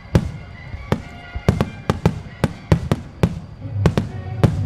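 Starmine fireworks shells bursting in quick succession: about a dozen sharp bangs, two or three a second, each ringing out briefly.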